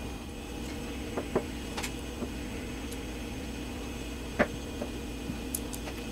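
A kitchen knife chopping a block of pepper jack cheese on a cutting board: scattered, irregular taps of the blade on the board, the loudest about four and a half seconds in, over a steady low hum.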